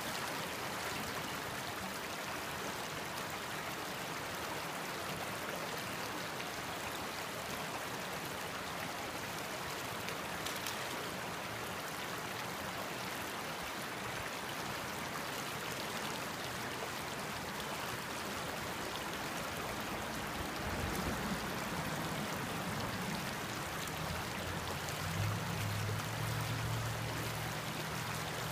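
Creek water rushing steadily over rocks and small rapids. About two-thirds of the way through, a low rumble joins in, growing stronger near the end.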